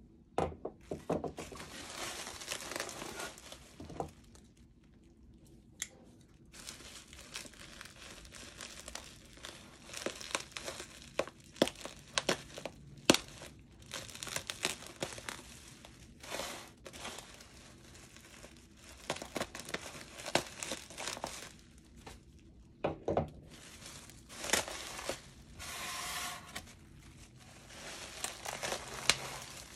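Bubble wrap being cut open with a folding knife and unwrapped by hand: irregular crinkling and crackling with sharp clicks, pausing briefly about five seconds in.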